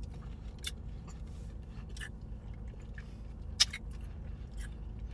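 A few sharp clicks and crunches of biting into and chewing sour grapes, the loudest about three and a half seconds in, over a steady low rumble.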